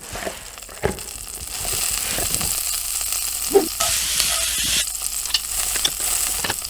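Food sizzling and crackling in a frying pan, with scattered clicks and a louder burst of hiss about four seconds in.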